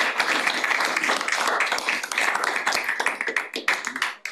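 A small group applauding, many hands clapping at once, thinning to a few scattered claps near the end before stopping.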